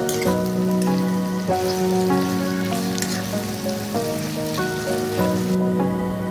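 Instrumental background music of held melodic notes over sliced onions sizzling in hot oil in a pan; the sizzle drops away near the end.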